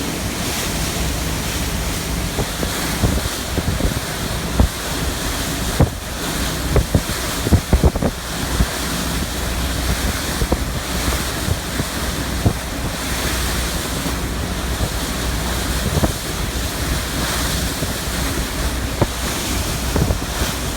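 Strong wind buffeting the microphone over the rush of choppy water and a steady low boat engine drone, with scattered sharp knocks, the loudest cluster about seven to eight seconds in.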